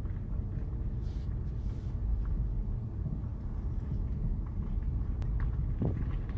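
Car's engine and tyres heard from inside the cabin as it drives slowly: a steady low rumble, with a few faint clicks over it.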